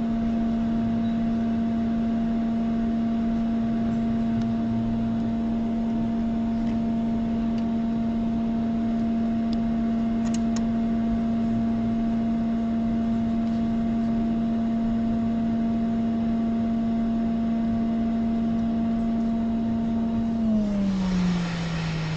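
Steady electric hum of a hot air rework station's blower at the bench. About twenty seconds in the pitch steps down and a rush of air rises as the hot air nozzle is brought over the new NAND flash chip to solder it.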